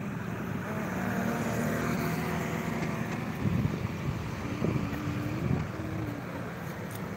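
Bus traffic: a steady low diesel engine rumble. A faint held tone rides over it through the first half, and a faint wavering tone comes in about two-thirds of the way through.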